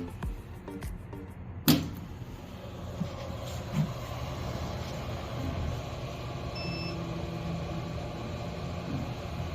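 Background music ends with a sharp click, then a CO2 laser machine runs with a steady low hum, with a short beep partway through.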